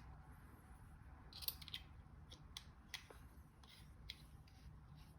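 Faint, scattered clicks and light scrapes of small metal parts being handled as the needle spring is fitted into a spray paint gun.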